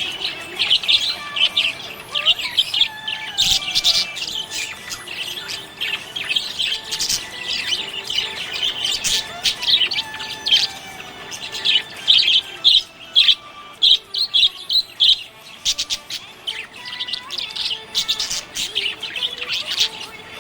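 Budgerigar chirping and warbling: a busy, continuous run of short, high chirps, with a quick string of separate chirps a little past the middle.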